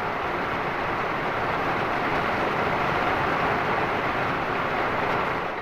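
Steady rain from a passing thunderstorm, heard from inside a camper van as an even hiss that holds at one level.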